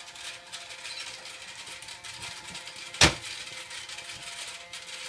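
A single sharp knock about three seconds in, over a faint steady hiss with a low hum.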